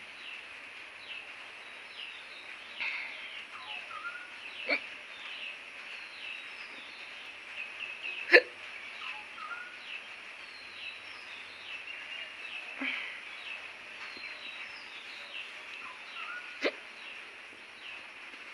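A woman hiccuping, a short sharp hiccup every few seconds, about five in all, with the loudest about eight seconds in. Birds are chirping in the background.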